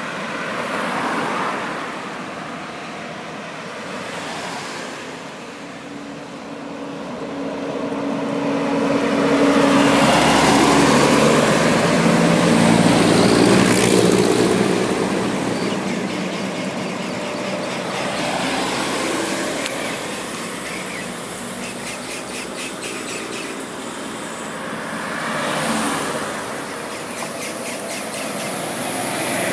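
Coach buses and cars driving past one after another, engine and tyre noise swelling as each goes by and fading away, loudest from about ten to fourteen seconds in as a bus passes close.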